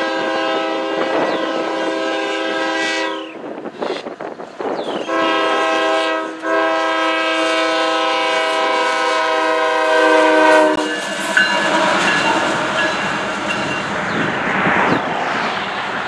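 Multi-note air horn of a CSX GE ES44AH diesel locomotive sounding for a grade crossing: a long chord blast that ends about three seconds in, a brief break, then a second long blast of about six seconds. The horn then stops and the light engine runs past, its diesel engine and wheels clicking over the rail joints.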